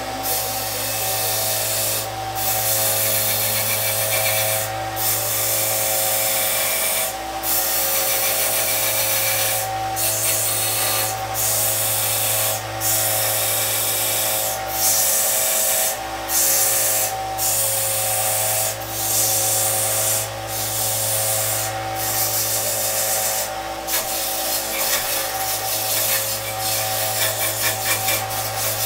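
Small benchtop belt sander running while the fret-wire ends on a wooden ukulele neck are pressed against the belt, grinding the metal nubs flush with the sides of the neck. Over a steady motor hum, the grinding hiss breaks off briefly every second or two as the neck is lifted and set back on the belt.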